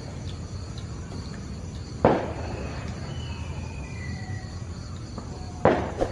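Night-time outdoor ambience with a faint insect chirr, broken twice by a sharp firecracker bang, about three and a half seconds apart.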